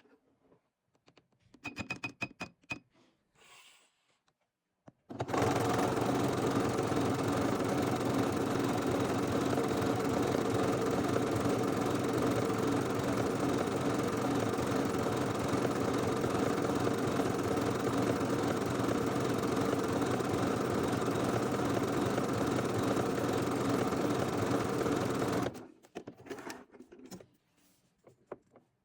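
Sewing machine stitching at one steady speed for about twenty seconds, starting and stopping sharply. A few clicks and knocks before and after it.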